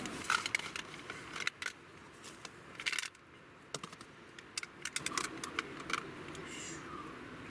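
Cardboard packaging and a clear plastic musubi press being handled, with a scatter of light clicks and taps and a brief rustle about three seconds in.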